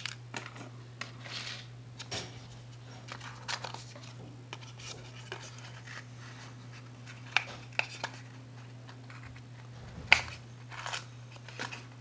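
Small jewelry items and a small box being handled and put away: scattered light clicks and rustles, with a few sharper clicks about seven and a half and ten seconds in. A steady low hum runs underneath.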